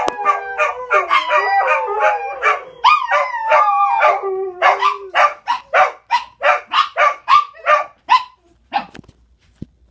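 Dogs barking excitedly at the door and window. For the first four seconds or so, long falling howl-like cries run over the barking. Then comes a quick string of sharp barks, about three a second, that stops about eight seconds in.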